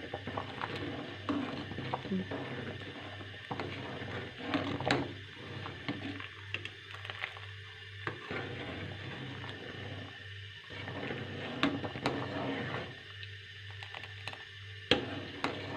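Metal spatula scraping and clinking against the bottom and sides of a metal pan as thickening milk-and-rice kheer is stirred to keep it from sticking, in irregular scrapes and clicks with sharper clinks about five seconds in and near the end. A steady low hum runs underneath.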